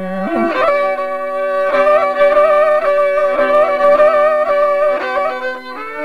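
Solo violin playing an ornamented, wavering melody over a held lower drone note: an instrumental passage in a Dersim kılam, a Zazaki lament-ballad.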